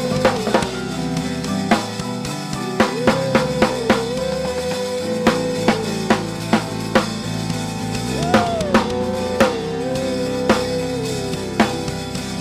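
Worship band music: drum kit strikes, irregular and loud, over a held melodic line and sustained lower notes. The melody bends upward about eight seconds in.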